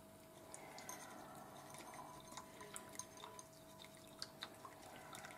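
Chopsticks and a metal ladle stirring miso paste into hot water in a ceramic bowl: faint scattered clinks and soft liquid swishes over a steady low hum.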